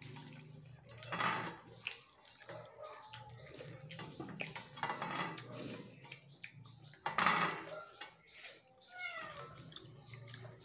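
Eating noises from rice and fish eaten by hand: a few short wet chewing and smacking bursts. A house cat meows once near the end, with a falling pitch.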